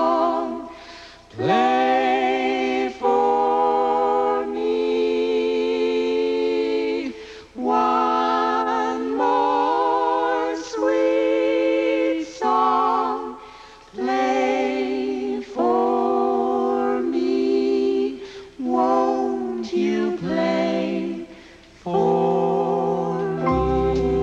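A group of voices singing a slow, gentle lullaby-like song unaccompanied, in long held notes with a slight waver, phrase after phrase with short breaths between. Near the end a low steady tone comes in underneath the singing.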